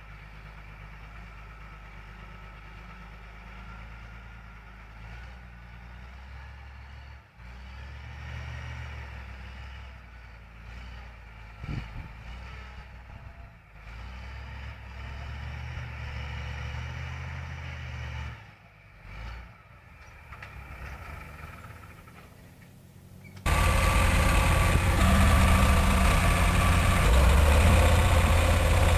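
Heavy equipment diesel engine running, a low, fairly faint hum with a sharp knock just before the midpoint. About 23 seconds in it cuts abruptly to a much louder heavy engine idling steadily.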